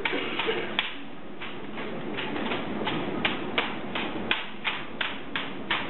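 Ceremonial rifle drill: the squad's rifles clacking sharply as they are slapped, spun and caught, about three clacks a second in a steady rhythm, over a low murmur of onlookers.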